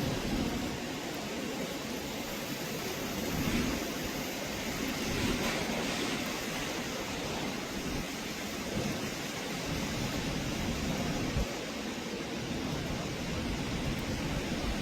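Typhoon wind and rain: a steady rushing noise, with gusts buffeting the microphone.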